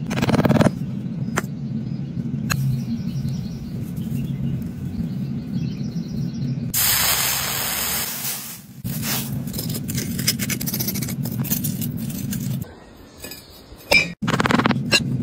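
Molten metal poured into a sand mold, giving a loud hiss of about two seconds in the middle, over a steady low hum. Near the end there is a sharp clink as the metal casting is set down on concrete.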